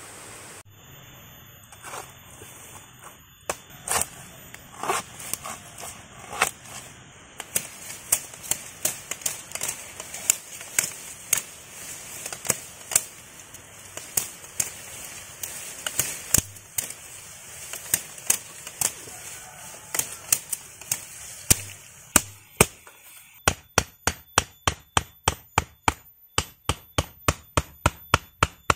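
Machete strokes chopping through vines and green plant stems, sharp separate chops, sparse at first and then about two a second. Near the end they turn into a quick, even run of about four chops a second as a thick plant stem is hacked at. A brief rush of falling water is heard at the very start.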